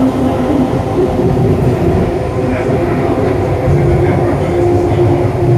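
Detroit People Mover automated car running along its guideway, heard from inside the car: a steady rumble of wheels on rail, with a motor hum that shifts up in pitch about halfway through.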